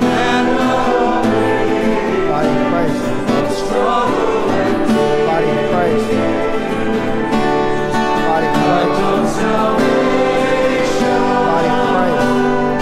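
A church congregation singing a hymn in unison with guitar accompaniment, steady and without pause.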